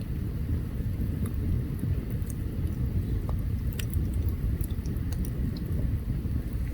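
Open campfire burning, wood giving off scattered sharp crackles and pops over a steady low rumble.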